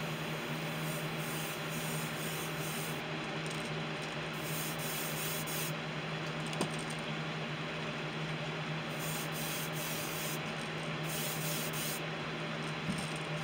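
Iwata airbrush spraying, lightly dusting paint onto a lure in four hissing passes of one to three seconds each, with a steady hum underneath.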